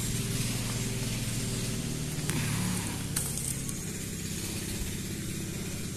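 An engine running steadily at an even pitch, from the machinery making forage for the cows.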